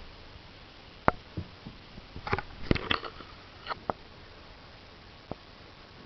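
Siamese cats making short odd noises: a scattered series of brief sniffs and clicks, busiest between about two and three seconds in.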